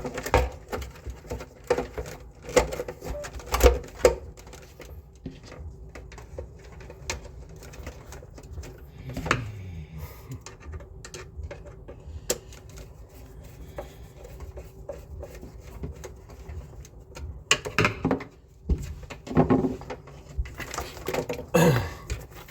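Irregular clicks, taps and knocks of hand work with tools and parts, busiest at the start and again near the end, over a faint steady hum.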